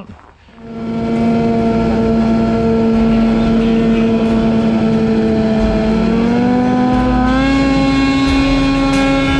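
Ski-Doo snowmobile engine running at a steady speed, heard from the sled, its pitch climbing a little about six seconds in and again a second later as it speeds up.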